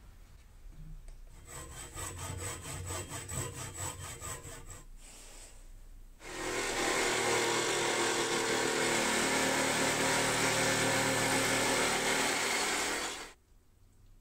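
Power saw cutting a wooden dowel lengthwise, splitting it in a plywood jig. It runs at a steady level for about seven seconds, starting and stopping abruptly. A few seconds earlier comes a quieter, rhythmic whirring.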